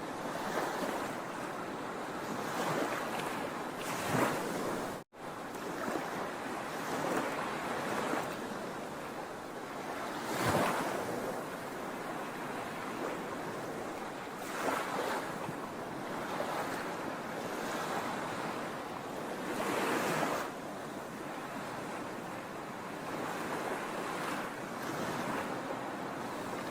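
Sea waves breaking on the shore: continuous surf with louder wave crashes every few seconds. The sound drops out for an instant about five seconds in.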